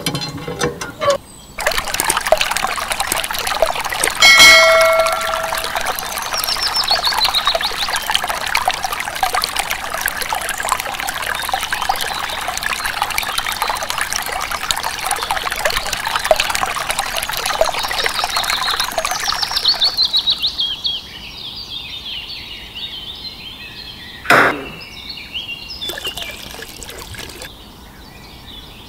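A thin stream of water pouring from a miniature hand pump's outlet pipe and splashing into a small model pond; it drops to a faint trickle about two-thirds of the way through. A short pitched squeal sounds about four seconds in, and there is one sharp knock near the end.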